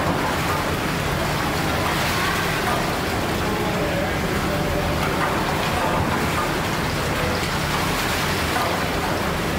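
The 1858 Hawthorn steam beam pumping engine running, a steady hiss and low machinery hum with no distinct knocks, under indistinct voices murmuring.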